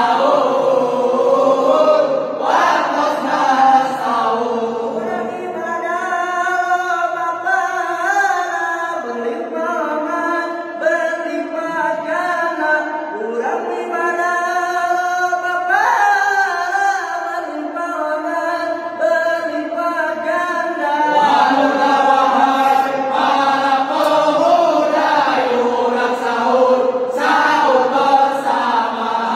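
A group of young people's voices chanting and singing together into a microphone: a Sundanese sahur wake-up chant with long held notes that rise and fall.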